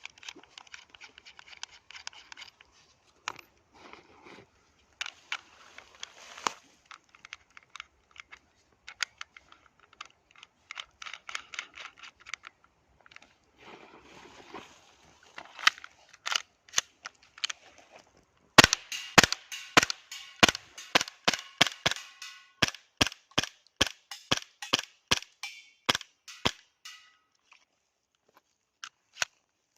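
CZ P-10 C CO2 gas-blowback airsoft pistol firing a string of about twenty sharp shots, two to three a second, in the second half. Before the string come quieter scattered clicks and rattles.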